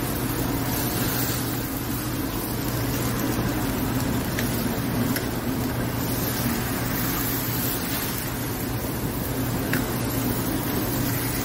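Meat sizzling on a charcoal grill as dripping fat flares into flames: a steady rushing noise with a few faint crackles, over a constant low hum.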